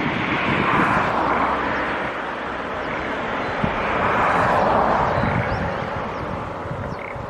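Outdoor ambience dominated by passing vehicle noise: a broad rushing sound that swells and fades twice, over a low rumble.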